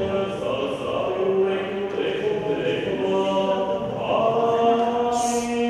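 Orthodox liturgical chanting: a voice sings on long held notes that step from one pitch to the next.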